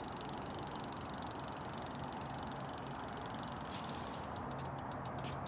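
Rear hub of an SE Bikes Fast Ripper BMX freewheeling: the ratchet clicks in a fast, dense buzz as the wheel spins, then slows near the end into separate clicks as the wheel runs down.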